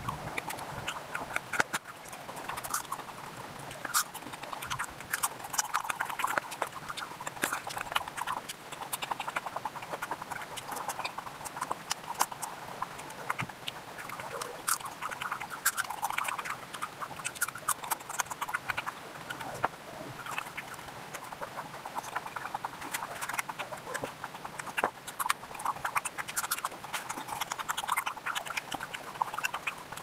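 Close-miked ASMR eating of Bengali sweets such as boondi and jalebi, played back at high speed: a rapid, unbroken run of wet chewing smacks and clicks.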